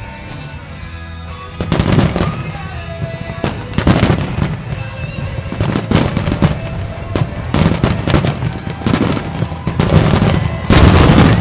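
Aerial firework shells bursting in a rapid barrage, with sharp reports, low booms and crackle, starting about one and a half seconds in over music. The loudest cluster of bursts comes near the end.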